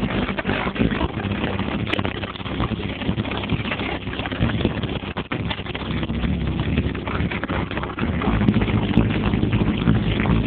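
Bass-heavy electronic music played loud through an aftermarket car stereo and amplifiers, distorted into a muddy rumble by the overloaded phone microphone. The bass gets louder about 8 seconds in.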